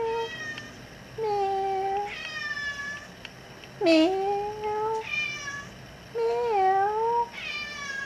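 Domestic cat meowing repeatedly to be let outside: about six long, drawn-out meows, some rising and falling in pitch, the loudest about four seconds in.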